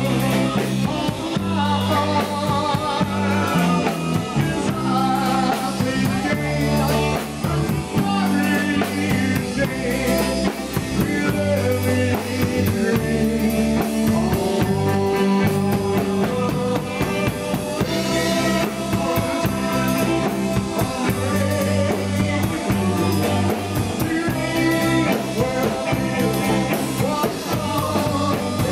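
A live rock and roll band playing: electric bass, drum kit and electric guitar, with men singing near the end.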